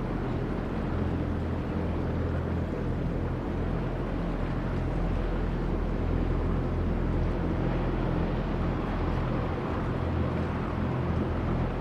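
Engine of a river sand barge running steadily: a low, even drone under a continuous rushing noise of water and wind.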